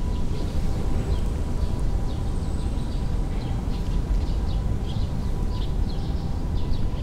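Small birds chirping in many short, quick calls over a steady low rumble, with a faint steady tone behind.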